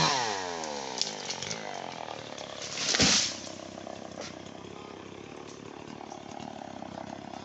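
Two-stroke chainsaw engine dropping from full cutting revs to a steady idle, its pitch falling over the first second or so. About three seconds in, a brief loud rushing swish cuts across it.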